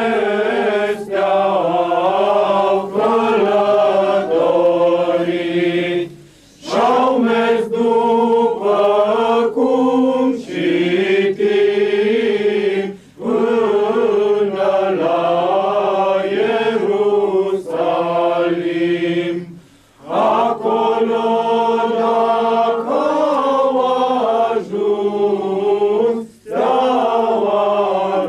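A group of voices singing a slow chant together, in phrases about six seconds long separated by short pauses for breath.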